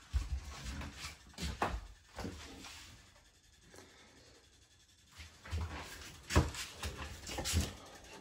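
Scattered thumps and knocks of someone walking about inside a boat's cabin, with a quiet stretch in the middle.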